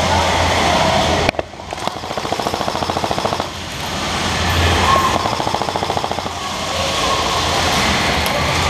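Airsoft electric guns firing on full auto: a fast mechanical rattle of shots in a couple of long bursts of about two seconds each.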